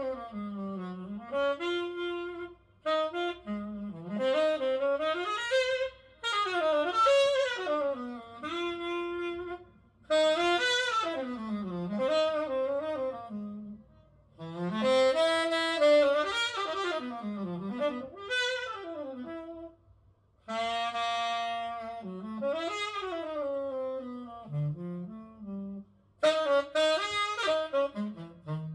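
Instrumental break of a slow jazz ballad played back from a vinyl record: a saxophone solo plays melodic phrases of a few seconds each, with short breaths between them, over a soft bass accompaniment.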